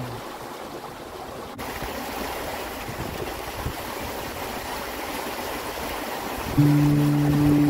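Steady rush of water along the hull and in the wake of a sailing trimaran, getting brighter and louder about a second and a half in. Near the end, background music with sustained chords comes in louder than the water.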